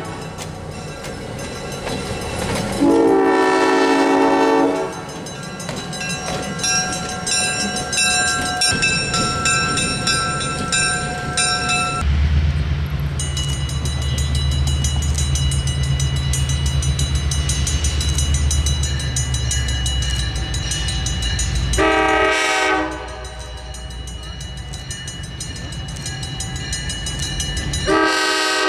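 EMD diesel locomotive horns. One long blast about three seconds in. After an abrupt change about halfway through, a steady low diesel engine rumble from an approaching train, with a short horn blast and another starting near the end.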